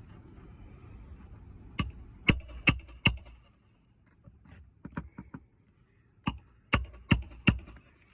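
Hammer driving roofing nails into shingles: two runs of four sharp, ringing strikes about 0.4 s apart, with a few lighter taps between them.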